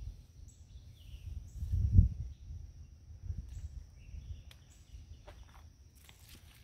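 Steady high-pitched insect trill, with low rumbling bumps of wind or handling on the microphone, loudest about two seconds in. Light rustles and footsteps through the plants come in near the end.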